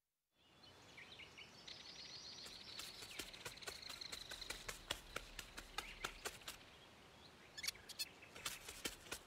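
Faint forest ambience fading in after about half a second, with small birds chirping and trilling and a scatter of short, light clicks and taps that bunch together near the end.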